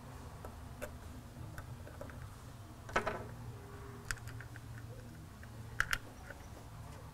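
Scattered light clicks and ticks of a T20 Torx driver and small screws being worked out of the fuel heater assembly on a Duramax fuel filter head, the sharpest click about three seconds in and a quick pair near six seconds.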